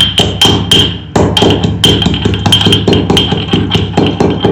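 Pestle pounding ginger and whole spices in a mortar with rapid, even strikes, about four a second. Each strike rings with a clear high note.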